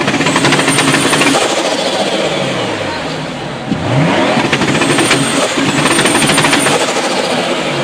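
Turbocharged car engine revved hard twice, once at the start and again about halfway through, its pitch climbing fast and then falling away each time. A rapid chattering turbo flutter sounds while the revs are high.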